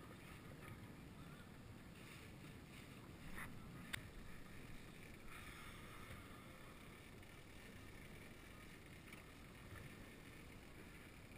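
Faint wind and water noise aboard a fishing boat at sea, with one sharp click about four seconds in.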